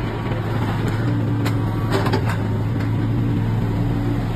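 Kubota U-35 mini excavator's diesel engine running steadily with a deep, even hum, with a few light clicks about a second and a half and two seconds in.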